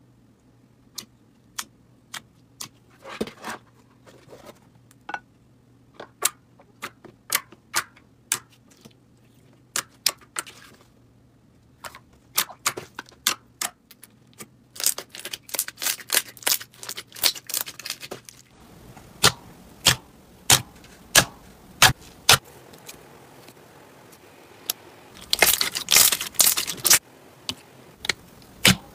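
Slime being pressed and squished with fingers, giving a series of sharp sticky clicks and pops. They are scattered and separate at first, come faster in the middle, and run together into dense crackling near the end.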